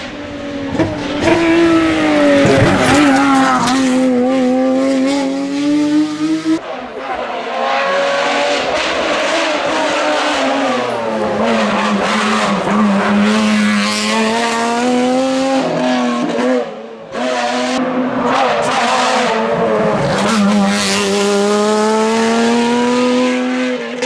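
Renault Mégane Trophy's naturally aspirated 3.5-litre Nissan VQ35 V6 racing engine at high revs. Its note rises and falls as the car accelerates and slows through bends, in several passes with abrupt breaks between them.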